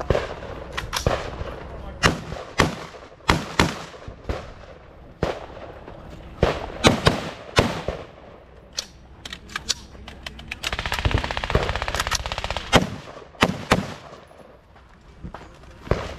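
Rifle fired repeatedly on a shooting stage. The shots come singly and in quick pairs at an uneven pace, with a fast string of rapid shots a little past the middle.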